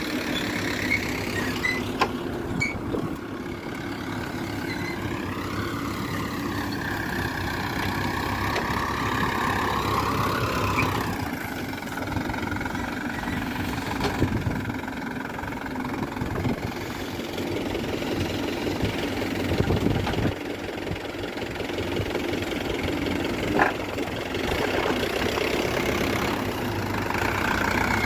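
Diesel engines of a farm tractor and backhoe loader running steadily at work. A whine wavers in pitch for several seconds in the first half, and there are a few sharp knocks.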